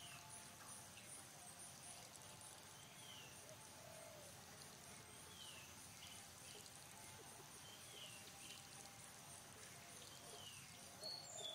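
Faint forest ambience: a bird repeating a short falling call every two seconds or so, over a faint high pulsing about two to three times a second, with a few sharper, louder notes near the end.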